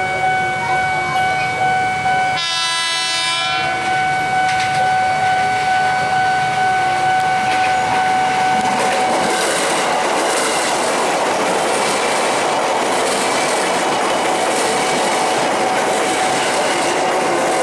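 A JR 205-series KRL Commuter Line electric train sounds its horn once for about a second near the start, then runs past close by with its wheels clattering over the rails for the second half. Through the first half, a level-crossing warning signal rings in steady pulses, about two a second.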